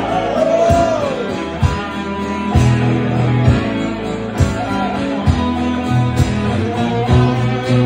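Live blues band playing an instrumental passage: strummed acoustic guitar and electric guitar over sustained bass notes and a steady drum beat of about one hit a second.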